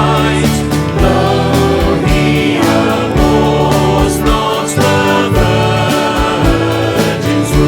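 Music with a steady drum beat under sustained chords, in a Christian gospel style.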